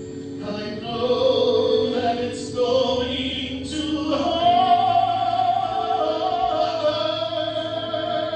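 Voices singing long held notes with musical accompaniment, the pitch shifting a few times, from a stage musical number.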